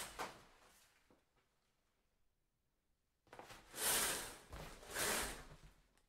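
Shower curtain being pulled along its rod, a swishing slide: the fading end of one pull right at the start, then another pull from about three seconds in, lasting about two and a half seconds with two surges.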